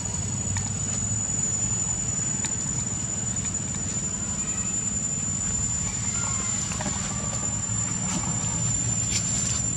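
Forest ambience: a steady high-pitched insect drone over a low, even rumble of background noise, with a few faint clicks.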